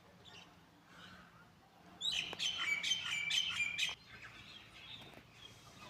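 A bird chirping: a quick run of high, repeated chirps lasting about two seconds in the middle, over faint outdoor background.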